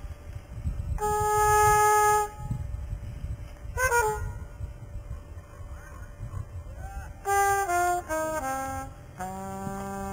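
A solo brass horn playing jazz phrases: a held note about a second in, a quick bending run near the middle, a falling run of short notes later, then a long held note near the end.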